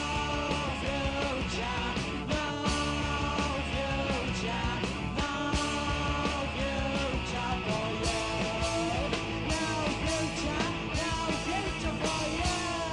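Live punk rock band playing: electric guitar and drums with a singer shouting the vocals into the microphone.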